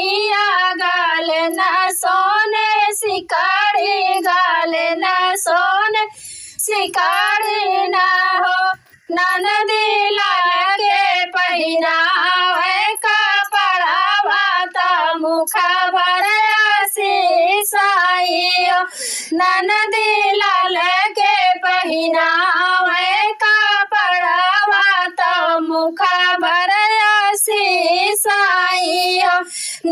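A high female voice singing a sohar, the Awadhi childbirth folk song, unaccompanied, holding long notes with a wavering vibrato. She breaks briefly for breath about six and nine seconds in.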